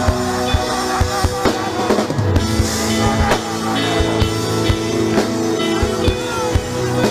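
Church worship music: a drum kit keeping a steady beat under held chords.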